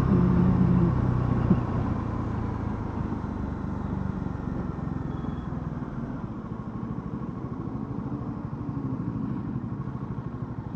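Bajaj Dominar 400's single-cylinder engine running steadily, then easing off about a second and a half in and settling to idle, its beat heard as rapid even pulses.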